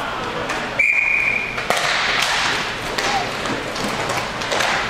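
A hockey referee's whistle blown once, a short steady blast of just under a second about a second in. Sharp clacks of sticks and puck follow as play goes on.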